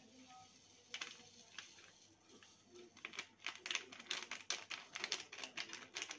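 Jelly-powder packet crinkling as it is shaken and tapped to empty the powder into a saucepan of water: a single sharp click about a second in, then a fast, irregular run of crackles from about three seconds in.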